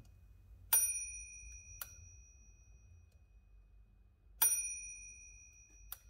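Margin bell of an Olivetti M20 typewriter struck twice by hand: a clear ding about a second in and another some four seconds in, each ringing out for about a second. A short metallic click falls between the two dings.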